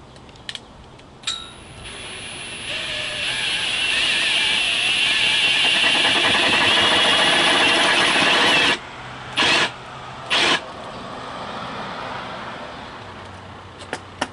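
Cordless drill turning an adjustable hole cutter through a rubber mat. It builds up over a couple of seconds, runs hard for about five seconds and stops abruptly. Two short bursts of the drill follow, then a softer run that fades, with a few clicks near the end.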